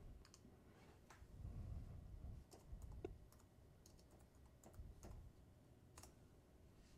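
Faint computer keyboard typing and mouse clicks: a handful of scattered, soft keystrokes and clicks.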